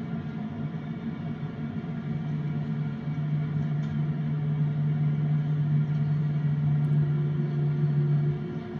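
Jet airliner cabin noise beside a wing-mounted turbofan engine during descent: a steady low drone of engine and airflow with a low hum that grows louder about three seconds in and drops away shortly before the end.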